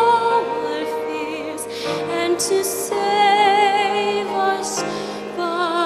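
Mixed choir of men's and women's voices singing live with orchestral accompaniment: long held notes with vibrato, and the short hiss of sung 's' consonants several times.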